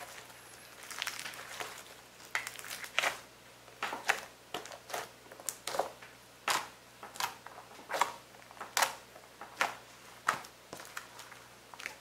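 Clear pale-green slime being squeezed, pressed and stretched by hand, giving irregular sticky clicks and crackling pops, roughly one or two a second.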